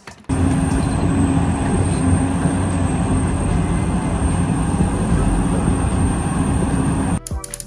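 Loud, steady mechanical running noise with a thin high whine over it. It starts suddenly and cuts off abruptly about seven seconds in.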